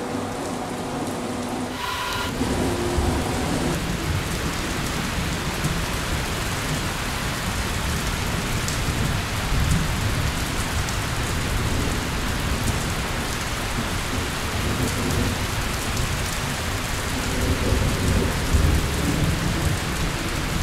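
Steady heavy rain with low rolls of thunder, the rumbling swelling about halfway through and again near the end.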